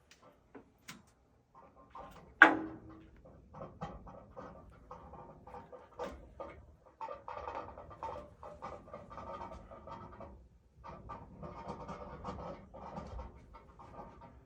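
Noise from inside a wall: one sharp knock about two and a half seconds in, then a long run of irregular, rapid clicking and rustling that comes and goes, pausing briefly about ten seconds in.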